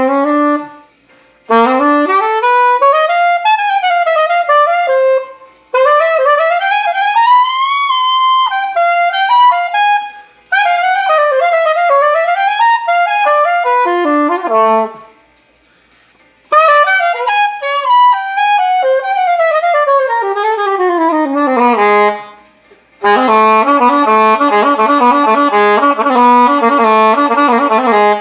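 A solo wind instrument playing fast runs of notes up and down, in phrases of a few seconds with short pauses between them. The last phrase is a quick repeated figure of notes.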